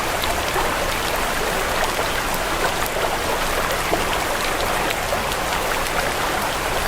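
Steady rain-like water sound: an even wash of noise dotted with many small droplet ticks.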